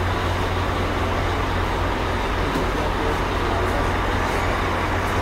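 Idling bus engine: a steady low hum under broad mechanical noise, with a few faint clicks.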